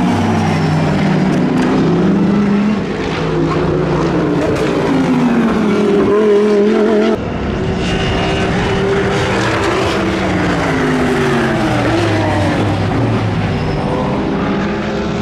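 Racing engines at speed: the Mercedes-AMG GT3's V8 passing, its note rising and falling through gear changes. About seven seconds in the sound cuts abruptly to a pack of GT race cars, several engines revving up and down as they brake and accelerate through a corner.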